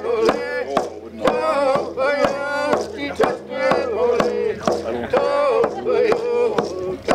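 Hand-held hide frame drum struck with a beater in a steady beat of about two strokes a second, with a man singing over it.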